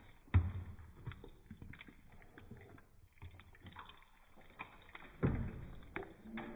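A utensil stirring pieces through thick, sticky coconut caramel in a pan, with small scrapes and ticks and two sharp knocks against the pan, one about half a second in and one near the end.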